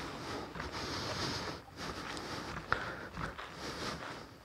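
Footsteps on a packed dirt and gravel yard, walking at an even pace, with faint outdoor background noise.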